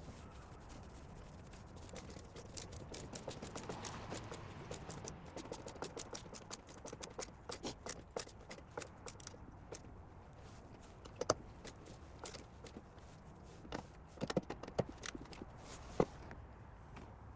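Small clicks, taps and light scrapes of hands handling small parts, a quick run of them for several seconds, then a few sharper separate clicks spaced out toward the end.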